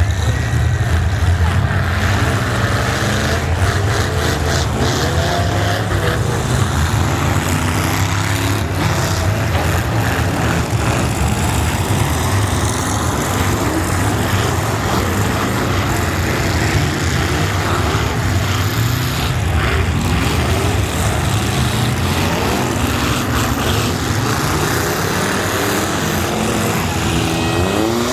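Truck engines running steadily, a constant low rumble with faint rising and falling engine tones above it.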